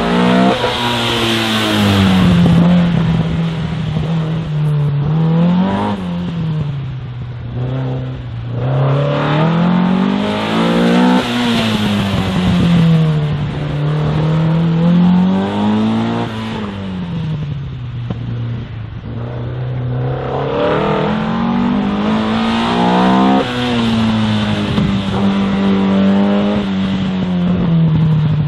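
Opel Kadett C coupé slalom car's engine running hard, the revs climbing and dropping back about five times as it accelerates between cones and lifts off for the turns.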